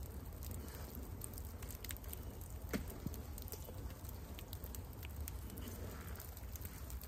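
Snowboard bindings being strapped in: faint irregular plastic clicks and ticks, with one sharper click about three seconds in, over a low steady rumble.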